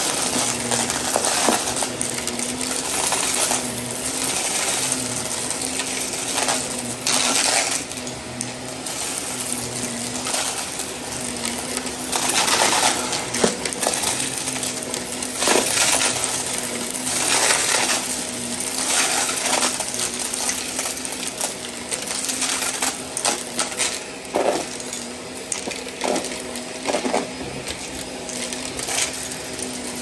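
Shark upright vacuum cleaner running over carpet, sucking up scattered grit, glitter and small crumbly bits that rattle and crackle up through the head and hose. The motor's steady hum runs under the uneven clatter of debris, which swells and thins as the head passes over thicker and thinner patches.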